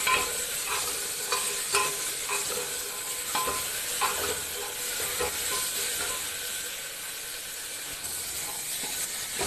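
Wet spice paste sizzling in hot oil in a pressure cooker as it is fried and stirred. A spoon clicks and scrapes against the pot now and then, mostly in the first half.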